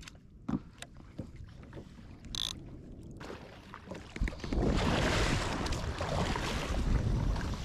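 Light knocks and water sounds around a kayak, then from about four seconds in, loud, steady splashing as tuna thrash at the surface beside the kayak.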